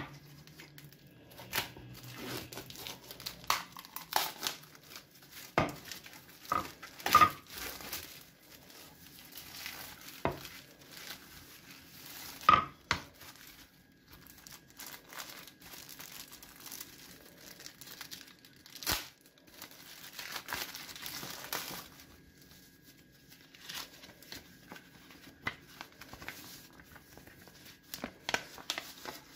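Thin clear plastic wrapping crinkling and tearing as a wooden cutting board is unwrapped by hand, in irregular bursts with a few sharper clicks.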